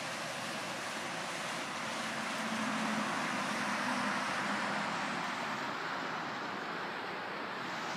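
Steady rush of a stream cascading over rocks and small falls in a gorge.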